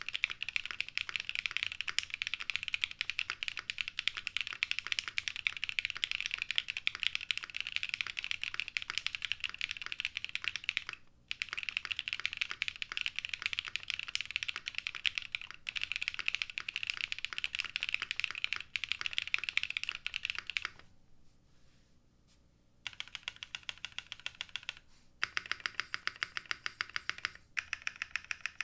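Fast continuous typing on a Geonworks F1-8X mechanical keyboard fitted with lubed Novelkeys Cream Dreams linear switches on an aluminium plate with no dampening. The typing breaks off briefly around the middle and pauses for about two seconds before resuming.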